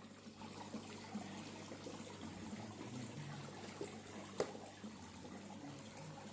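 Faint trickling water, steady, with a single sharp click about four seconds in.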